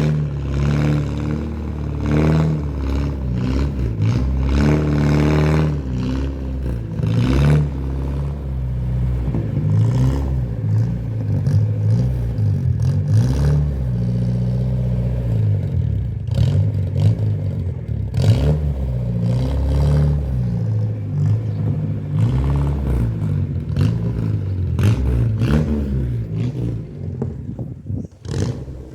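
Ford Corcel's four-cylinder engine running as the car is driven, its pitch rising and falling again and again with the throttle, with scattered light clatter.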